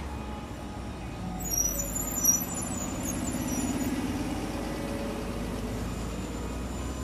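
Busy street traffic with a hybrid-electric city bus running close by. A brief high-pitched squeal comes about one and a half seconds in, then a low engine drone swells and fades.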